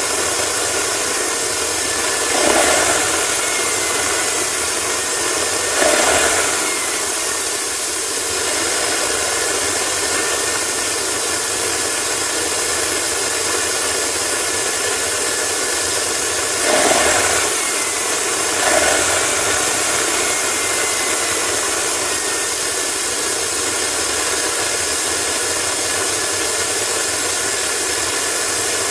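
Homemade turbocharger gas turbine jet engine running steadily: a loud rushing hiss with a thin high whine, swelling briefly four times.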